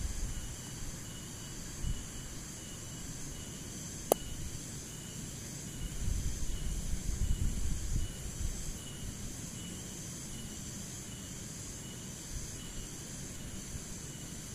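Crickets and other insects calling steadily: a continuous high-pitched buzz with a lower chirp pulsing over and over. A low rumble swells for about two seconds from about six seconds in, and a single sharp click comes about four seconds in.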